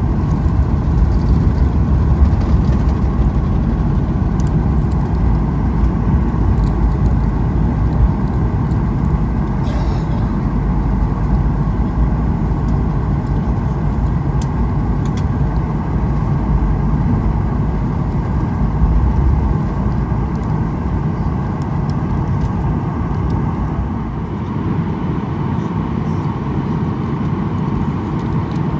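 Boeing 737-800 cabin noise during the landing roll-out: a steady low rumble of the engines and wheels on the runway, easing off slightly near the end.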